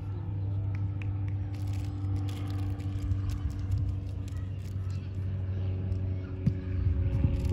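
Steady low hum of a motor running, with a few faint clicks over it.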